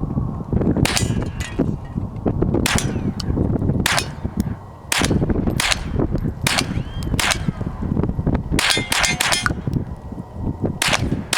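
A string of gunshots at an irregular pace, a dozen or more, with a quick run of about five shots in a row about three-quarters of the way through. Low wind rumble on the microphone runs under them.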